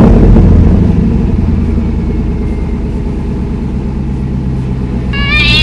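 An engine idling with a steady, deep rumble that eases slightly in level. Near the end a cat meows once over it.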